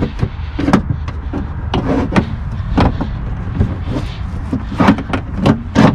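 A window motor and regulator assembly knocking and clunking inside a car door as it is worked into place, in irregular sharp knocks, a dozen or so, over a steady low hum.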